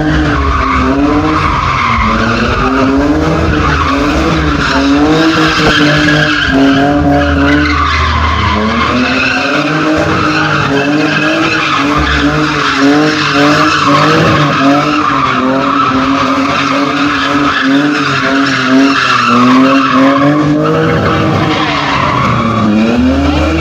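A drifting car's engine revving hard, its pitch rising and falling again and again as the throttle is worked, over a continuous squeal of sliding tyres.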